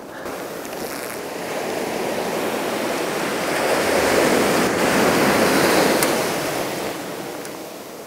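Sea surf: a wave rushing in and washing up the shore, the noise of the water swelling to a peak in the middle and fading away near the end.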